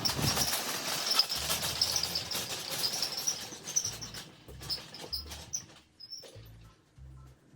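Background music with low bass notes that start and stop at intervals, under repeated high chirping sounds and a dense stretch of clicks and noise over the first three seconds.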